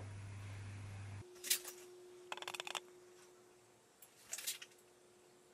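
Low electric hum of the pan-tilt camera mount's motor that cuts off suddenly about a second in. A faint steady whine follows, with three short bursts of mechanical clicking and rattling.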